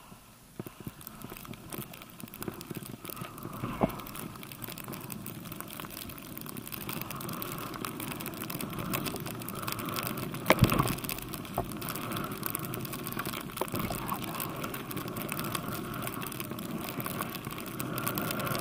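Skis running through deep powder snow: a steady rushing hiss that grows louder from about six seconds in as speed builds, with a few sharp knocks, the loudest about ten and a half seconds in.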